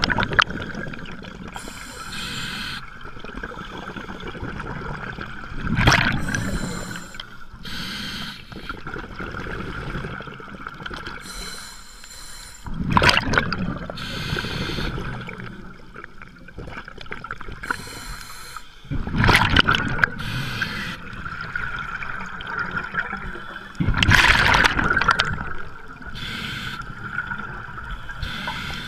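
Scuba diver breathing through a regulator underwater: a loud rush of exhaled bubbles about every six seconds, with a fainter hiss of the inhale between them, over a steady high hum.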